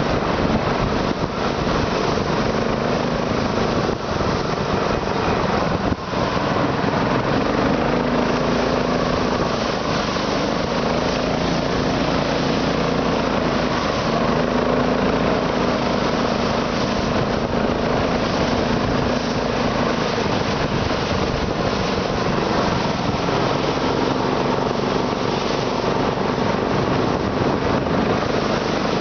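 Internal combustion engine running steadily, a dense continuous mechanical clatter.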